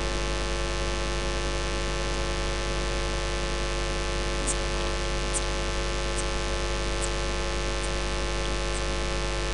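Steady electrical mains hum and hiss from the audio system, a buzz with many even overtones and no other sound over it. About halfway through and towards the end, a few faint high ticks.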